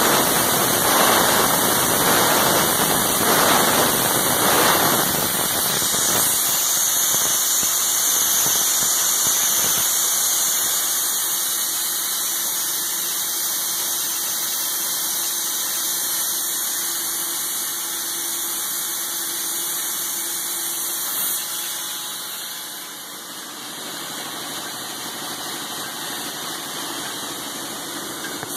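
Moll Regal envelope folding and gluing line running: a steady mechanical whirr of its belt conveyors and rollers with a strong airy hiss. The low rumble is heavier in the first few seconds, then the machine runs on a little quieter.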